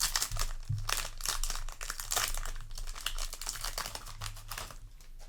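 A foil Yu-Gi-Oh! booster pack wrapper being crinkled and torn open: a dense run of crackling that dies away near the end.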